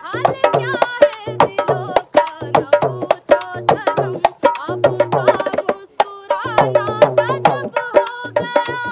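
A woman singing a Hindi song to a dholak, the two-headed barrel drum played by hand in a quick, steady beat under her voice.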